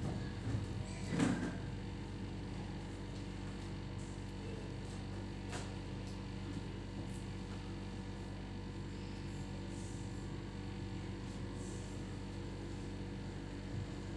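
Steady electrical mains hum, a low buzz with evenly spaced overtones, with a brief knock and rustle about a second in.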